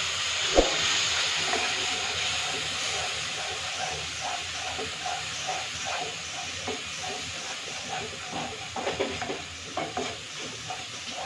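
Onion, garlic and chilli masala frying in oil in a karahi, sizzling loudly when a little water is added and the hiss slowly dying down as the paste braises. A spatula stirs it, with one clear knock about half a second in and quicker scrapes and taps against the pan near the end.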